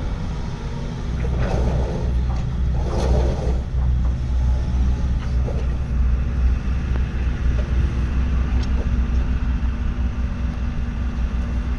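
Diesel engine of a Kato HD512-7 hydraulic excavator running steadily with a low rumble. Two brief noisy swells come about one and a half and three seconds in.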